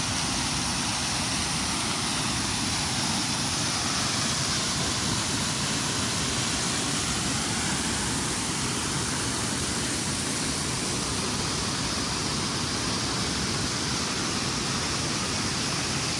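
Waterfall's steady, even rush of falling water.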